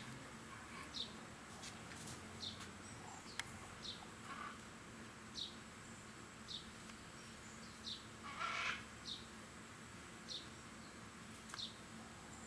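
A bird repeats a short high chirp about once a second. A brief burst of noise near the two-thirds mark is the loudest moment.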